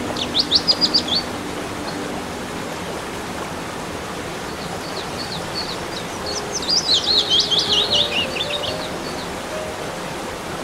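A songbird singing two phrases of quick, high chirping notes, a short one at the start and a longer tumbling one about six seconds in, over the steady rush of a waterfall.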